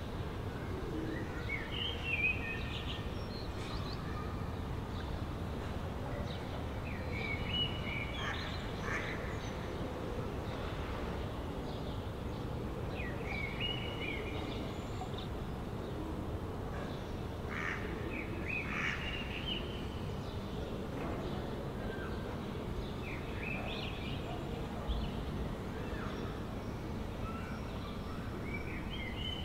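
Steady low city background hum, with a bird calling in short pitched phrases every five or six seconds.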